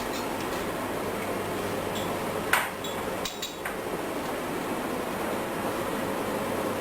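Foot-pedal bag sealer clacking shut once, sharply, about two and a half seconds in, followed by a few lighter clicks, over a steady mechanical hum.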